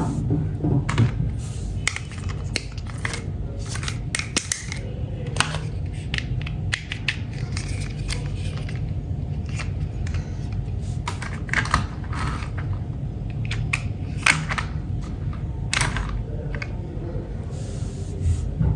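Irregular clicks and taps of plastic toy pieces being handled and fitted together, over a steady low hum.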